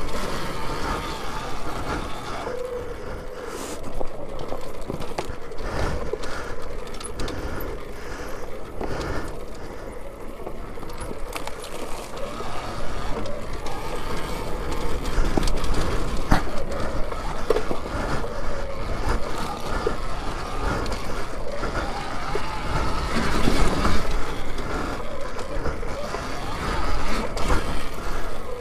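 Alta Redshift MXR electric dirt bike ridden over a tight, rocky trail: a steady rush of riding noise broken by many knocks and clatters from the tyres and chassis striking rocks, louder in surges a few times.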